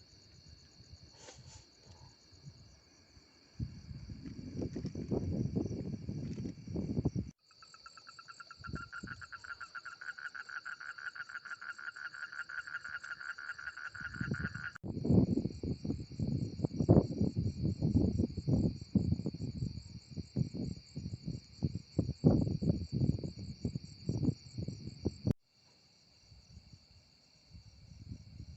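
Crickets and other insects chirring steadily, with a fast, even pulsed trill for about seven seconds in the middle. Close, irregular crackles and knocks come and go over it and are the loudest sounds, and the sound cuts off abruptly three times.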